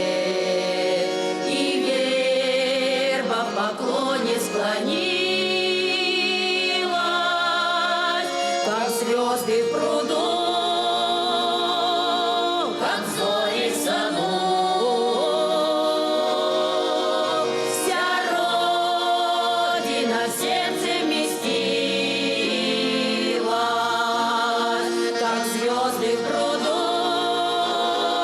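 Russian folk ensemble singing a folk song in several voices, with long held notes and vibrato.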